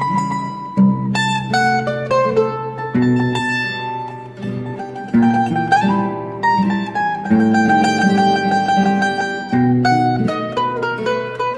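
Bandolim (Brazilian mandolin) plucking a melody over a seven-string acoustic guitar accompaniment, the guitar's bass notes moving beneath. The playing softens briefly about halfway through, then picks up again.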